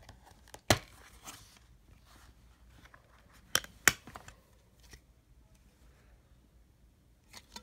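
Plastic DVD case being handled: a sharp plastic snap about a second in, then two quick clicks about a third of a second apart at around three and a half seconds as the disc is pressed off the case's centre hub, with faint rustling between.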